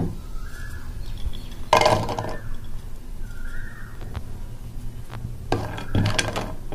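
Cashew nuts clattering into a nonstick pan of melted ghee about two seconds in, then a wooden spatula stirring them against the pan near the end, with light clinks.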